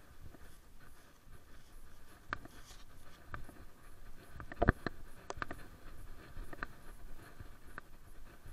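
Light scratchy rustling with scattered sharp clicks and knocks, the loudest about two and a half and five seconds in: handling noise from someone walking a dog on a leash, with the camera worn on the body.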